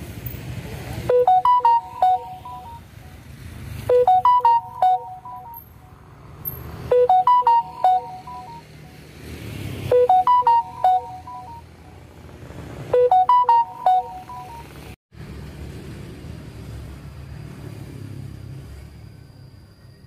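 Electronic beeping jingle, a quick run of short pitched beeps like a ringtone, repeated five times about three seconds apart over a low background rumble. It stops about 15 seconds in, leaving only the rumble.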